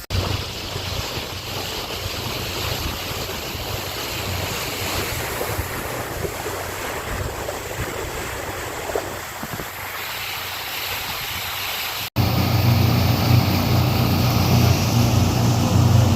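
Wind buffeting the microphone and water rushing past a fishing launch boat under way, over a low engine hum. About twelve seconds in it cuts to a louder, steady engine drone with the wind noise.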